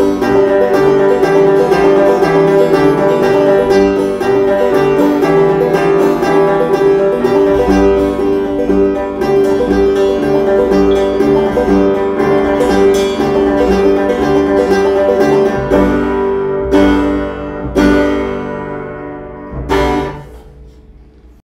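Banjo and piano played together, an instrumental passage that thins out into three separate closing chords, the last ringing out and dying away just before the end.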